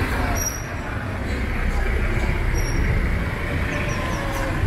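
Street ambience: steady traffic noise with a low rumble underneath.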